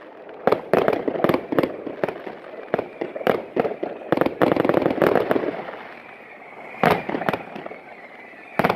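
Fireworks display: aerial shells launching and bursting in quick clusters of sharp bangs. A dense run of crackling reports about four to five seconds in, a short lull, then one loud single bang about seven seconds in.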